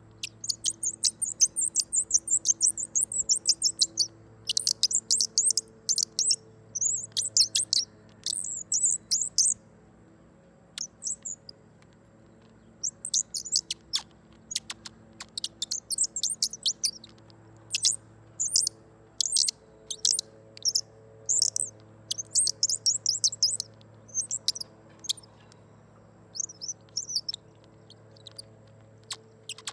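Handheld twist-knob bird caller squeaked in quick runs of high, bird-like chirps, each run half a second to two seconds long, repeated with short pauses. A faint steady hum lies underneath.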